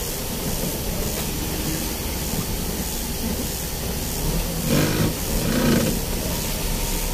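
Vehicle driving on a rain-soaked road, heard from inside the cab: a steady hiss of rain and tyre spray over a low engine rumble. About five seconds in there is a brief louder pitched sound.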